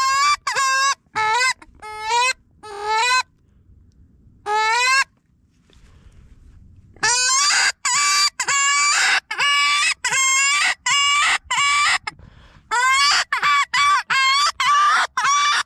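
Predator call sounding a dying-rabbit distress cry to lure coyotes in: runs of short, high, wailing cries, each rising at its start, repeated fast with a short pause about five seconds in.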